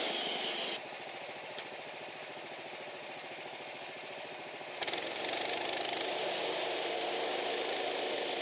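Sawmill engine running steadily; the sound turns abruptly quieter and duller about a second in and comes back fuller about five seconds in.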